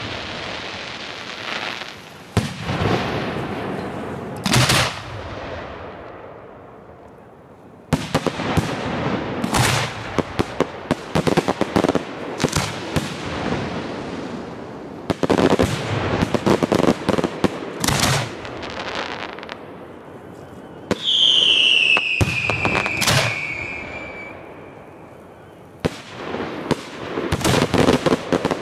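Professional display fireworks going off: aerial shells booming and bursting in quick volleys, with trailing crackle and short lulls between. About two-thirds of the way through, a high whistle glides down in pitch for a few seconds.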